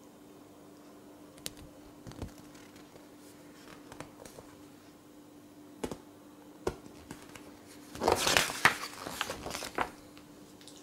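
Glossy magazine pages being handled and turned by hand: a few light taps and paper clicks, then a louder rustle of pages for about two seconds near the end.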